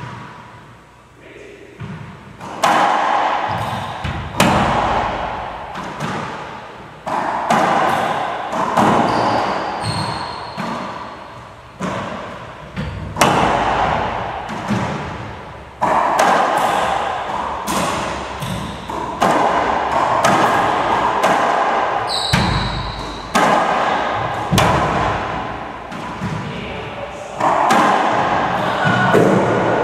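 Racquetball rally: a steady string of sharp smacks of the ball off racquets, the front wall and the hardwood floor, each ringing out in the enclosed court's echo. A couple of short high squeaks come in about ten seconds in and again past twenty seconds.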